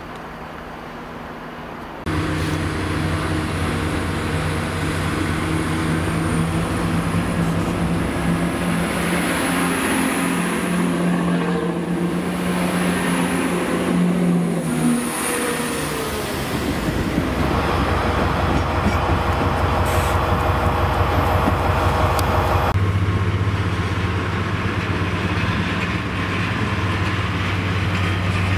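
A multiple-unit passenger train running past close alongside the platform, its steady engine drone bending down in pitch as it goes by, followed by the steady drone of a Colas Rail diesel freight locomotive running in slowly.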